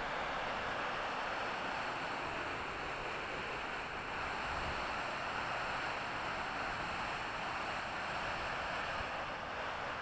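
Albion Falls, a tiered cascade waterfall, rushing steadily: an even, unbroken rush of falling water.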